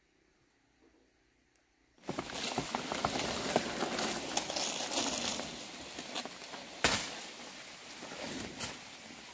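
Near silence, then about two seconds in, a steady crackling and rustling of dry leaves and undergrowth as someone pushes through forest vegetation, with one loud sharp crack a little later.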